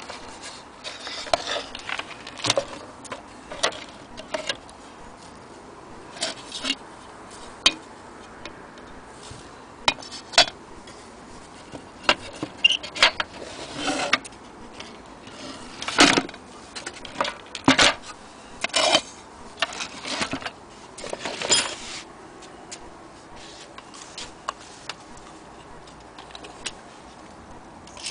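Irregular clicks, knocks and clinks of an old wooden wall clock being handled and turned: the case bumping and its loose metal movement parts and chain rattling. The knocks come at uneven intervals, thinning out near the end, with no steady ticking and no chime.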